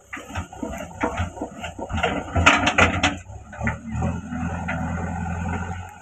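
JCB backhoe loader's diesel engine working under load as its front bucket shoves a pile of earth and roots. Roots crack and clods clatter throughout, loudest about two and a half to three seconds in. The engine runs on more steadily near the end.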